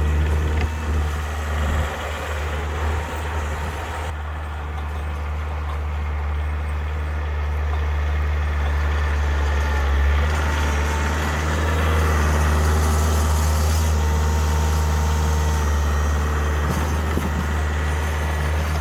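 Kioti compact tractor's diesel engine running steadily while clearing snow.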